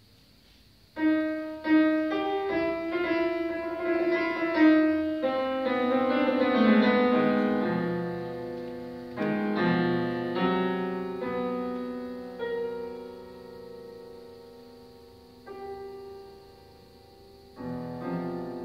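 Solo grand piano played in concert: after about a second of quiet, a loud entry of fast, dense notes, then single chords struck and left to ring and fade, with a loud chord near the end.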